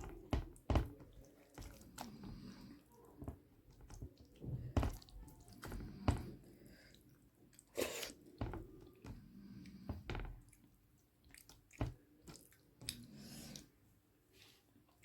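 Close-miked eating sounds: wet chewing and lip smacking of rice with curry, in irregular clicks and smacks, several in the first half and fewer near the end.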